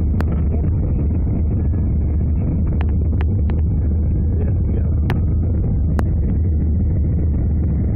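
Steady, muffled low rumble of an Airbus A319's cabin during descent, heard through a covered microphone, with a few sharp clicks.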